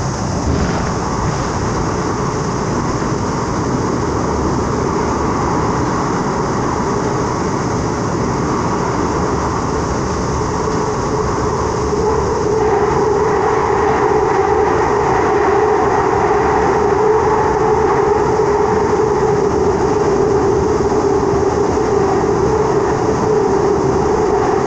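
Metro train running, heard from inside the passenger car: a continuous rumble. About halfway through, a steady whine joins in and the sound grows slightly louder.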